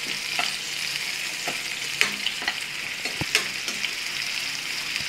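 Sliced onions, mustard seeds and curry leaves sizzling in hot oil in a non-stick kadai as they are stirred, a steady hiss with scattered sharp clicks.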